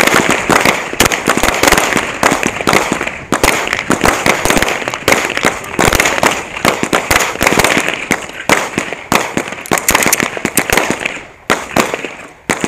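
Pistol gunfire from several shooters firing at once on a range line: sharp shots overlapping, several a second, easing briefly near the end.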